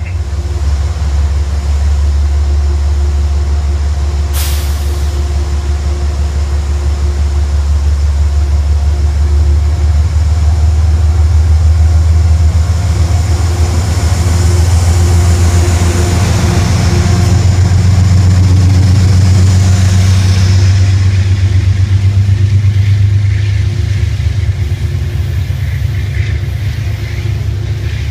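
Amtrak GE Genesis diesel locomotive pulling a passenger train out of the station, its engine running with a deep steady rumble. The rumble grows louder through the middle as the locomotive draws past and eases near the end as the coaches roll by. A single sharp click comes about four seconds in.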